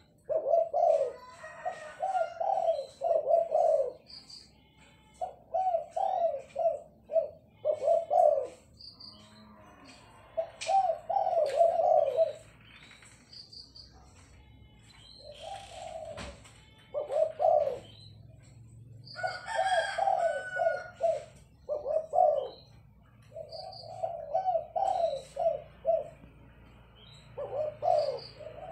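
A caged spotted dove (tekukur) singing its cooing song. Phrases of rhythmic low coos are repeated again and again, each a second or few long, with short pauses between them.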